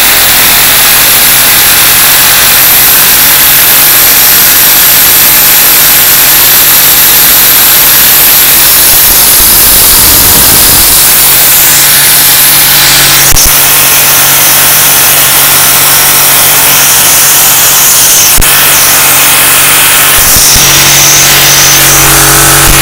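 Vacuum cleaner running loudly and steadily, its suction driving a one-cylinder Lego vacuum engine; the motor's note shifts about eleven seconds in and again near the end.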